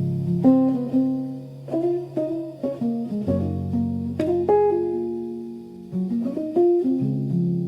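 Background music of plucked guitar notes and chords over held low bass notes.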